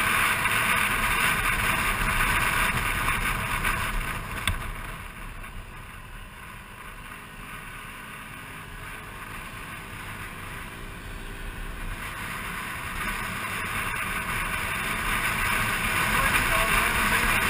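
Scooter ride heard through a helmet-mounted camera: a steady rush of wind and engine noise. It eases off after a single click about four and a half seconds in, then builds back up near the end as the scooter gathers speed.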